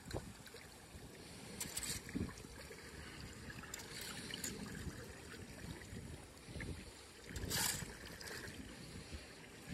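Storm-drain runoff: water running and trickling into a street drain, with wind rumbling on the phone's microphone. Three short rasping noises break through, the loudest about three-quarters of the way in.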